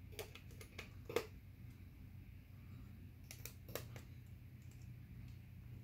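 Light plastic clicks and taps as a laptop's plastic palm rest and keyboard deck are handled: several in the first second, then another short cluster about three seconds in, over a faint steady low hum.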